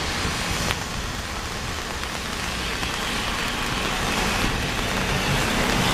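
Steady hiss of steam escaping from a standing LNER A4 Pacific steam locomotive, No. 60007, with a faint low hum underneath.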